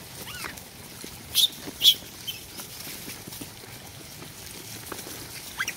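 Rhesus macaques calling: two short, high-pitched shrieks half a second apart, about a second and a half in, with a few fainter rising chirps.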